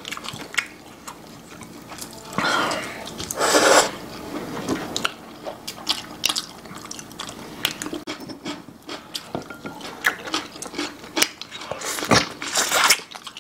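Close-up eating sounds of braised pork backbone: wet chewing and lip-smacking with sharp little clicks of chopsticks and tableware. Two louder wet bursts stand out, about two and a half seconds in and again near the end.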